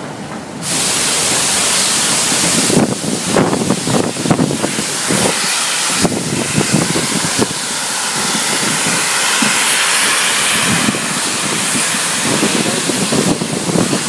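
A steam-hauled passenger train in motion, heard from an open carriage window: a loud, steady rushing hiss that sets in under a second in, with uneven low thumps and rattles running under it.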